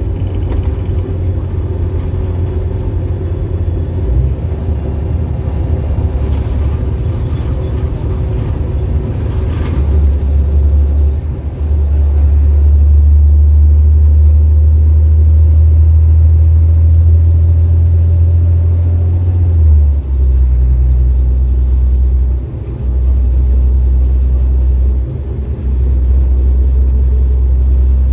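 A Denning Phoenix low-floor bus's Caterpillar diesel drivetrain running under way, heard from inside the passenger cabin as a deep, steady rumble. The rumble grows louder for several seconds about halfway through, then dips briefly a few times near the end.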